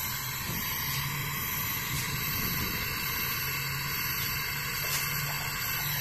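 Gas brazing torch flame hissing steadily as it heats a copper refrigerator filter drier joint for brazing.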